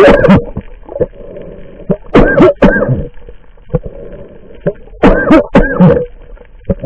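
Underwater water noise around a camera held just below the sea surface: loud gurgling, bubbling surges about every three seconds, with a lower wash between them.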